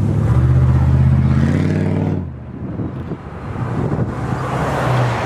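A motor vehicle's engine hum passing close by, fading out about two seconds in, over gusty wind buffeting the microphone; a fainter engine hum returns near the end.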